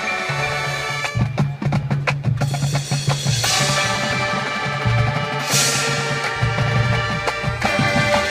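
High school marching band playing: sustained wind chords over low bass notes, with a run of sharp percussion hits about a second in and two crashes around the middle.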